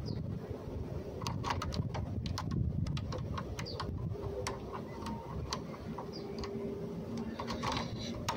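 Lock picking on a Travex pin-tumbler door lock: scattered small metallic clicks and scrapes as the pick works the pins in the narrow keyway, over a steady low rumble.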